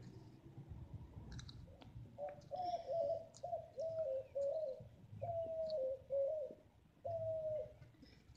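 A bird calling in a run of short, low, hooting notes, two or three a second, starting about two seconds in and breaking off twice. Faint crisp clicks of the tortoise biting into lettuce run underneath.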